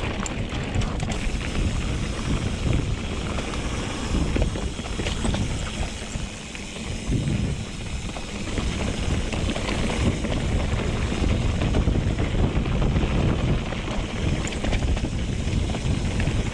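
Mountain bike rolling down a rocky descent, with wind buffeting the helmet chin-mounted camera's microphone and the tyres and bike rattling over rock. A few sharp clicks right at the start.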